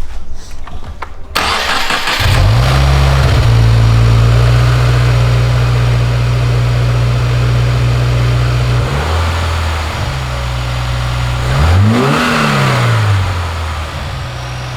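Mini Cooper S (R56) turbocharged 1.6-litre four-cylinder with a new aftermarket downpipe, cranked and started: it catches about two seconds in with a brief flare and runs at a fast idle. It then drops to a lower idle, and near the end is blipped once, the revs rising and falling.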